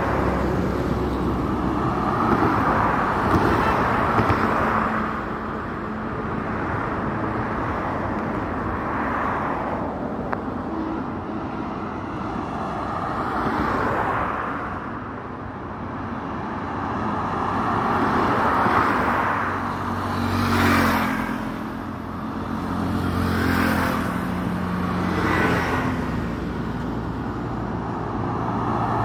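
Road traffic: cars and motorbikes passing one after another on a multi-lane road, the tyre and engine noise swelling and fading with each vehicle. The closest and loudest pass comes about three-quarters of the way through.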